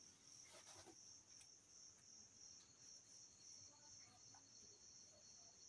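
Near silence, with a faint, steady, high-pitched trill throughout and a few faint soft clicks near the start.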